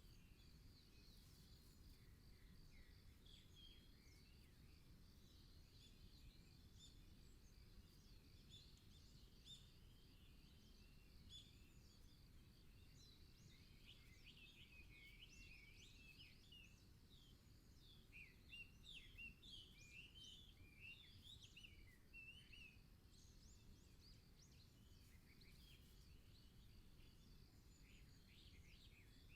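Faint birdsong: many short chirps and trills from several birds, busiest in the middle, over a steady thin high tone and a low background hush.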